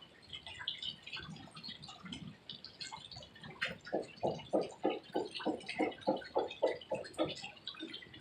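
Water dripping in scattered drops. From about four seconds in until near the end, a louder pulsing noise repeats at nearly four beats a second.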